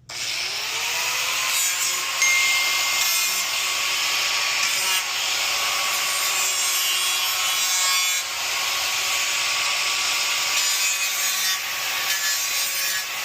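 Handheld electric engraving tool running with a steady whine that climbs as it spins up, its bit grinding scratchily against an iPad's metal back while engraving. The whine drops away near the end as the tool is stopped.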